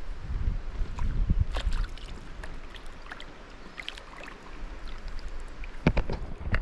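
Water splashing and dripping around a kayak, with scattered small clicks and knocks against the hull. Wind rumbles on the microphone in the first second or so, and two sharper knocks come near the end.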